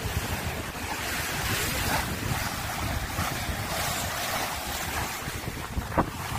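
Sea water rushing and splashing along the hull of a sailing yacht under way, with wind buffeting the microphone. A single sharp knock near the end.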